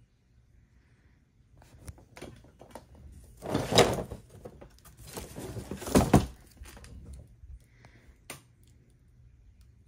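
Handling noise from the camera being moved: scattered knocks and clicks, with two louder thumps and rustles about four and six seconds in, and a last sharp click near the end.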